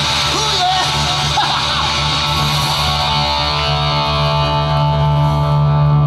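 Live rock band playing, with electric guitars ringing out in held chords over a steady low note.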